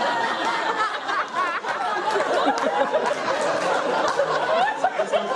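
A room full of people laughing together, many voices overlapping, with some talk mixed in.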